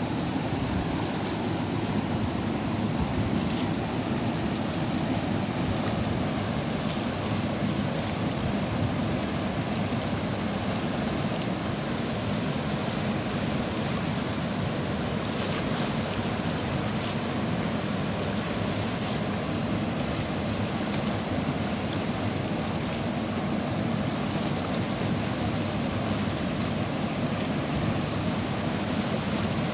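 Fast-flowing river water rushing steadily over rocks.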